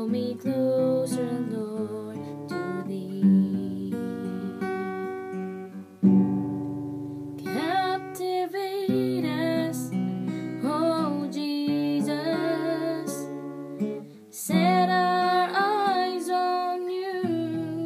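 Steel-string acoustic guitar strummed in chords, with a woman's singing voice joining in about seven seconds in.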